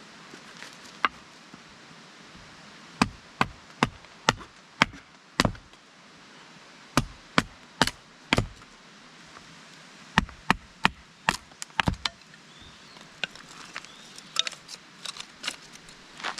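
Firewood being chopped or split with a blade: sharp wooden strikes in three runs of about four to six blows, two to three a second, with lighter taps near the end.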